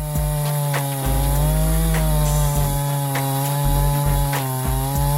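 Jonsered CS2255 two-stroke chainsaw (55 cc) running at high revs while cutting wood, its steady engine note dipping slightly and recovering a few times.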